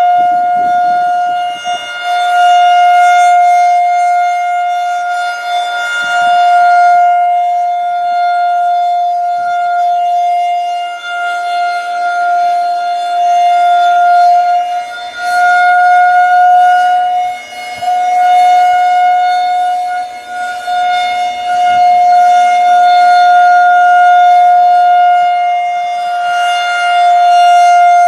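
Federal Signal 2001-130 outdoor warning siren sounding a steady alert tone: one unbroken pitch with no wail. It swells and fades every few seconds as the rotating siren head turns toward and away from the listener.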